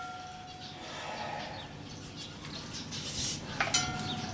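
Two light clicks about three and a half seconds apart, each followed by a short steady ringing tone, like a small hard object clinking; a brief rustle comes between them.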